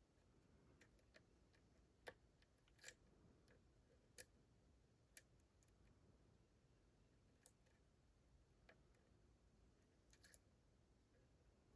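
Faint, irregular small metallic clicks of lock-picking tools working inside a Dorma DC500 lock cylinder, about a dozen scattered clicks over near silence.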